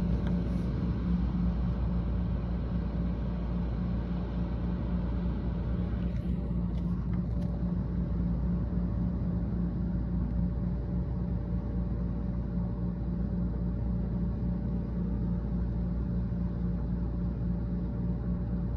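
Heavy thunderstorm rain and wind in a steady, rumbling rush, heard from behind window glass, with a faint steady hum underneath.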